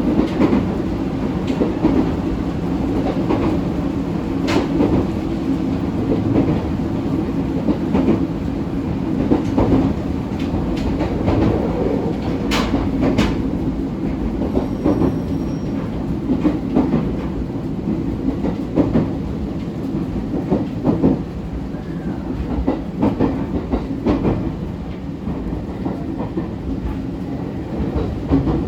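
ET127-series electric multiple unit running at speed, heard from inside the car: a steady rumble of wheels on rail, with scattered clicks from rail joints.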